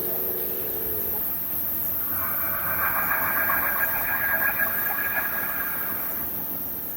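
A drawn-out raspy, snore-like sound, repeating through the night, starts about two seconds in and lasts about four seconds. A shorter, lower-pitched note trails off about a second in.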